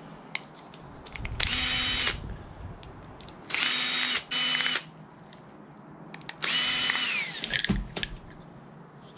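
Electric drill-driver running in four short bursts, backing out the small Torx screws that hold a circuit board; the last run winds down in pitch as it stops.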